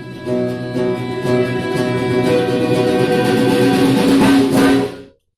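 Live instrumental ensemble music with strummed and plucked strings, growing louder and busier, then cutting off abruptly about five seconds in.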